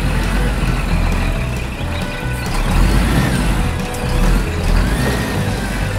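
A heavy vehicle's engine running steadily with a pulsing low rumble, mixed with background music.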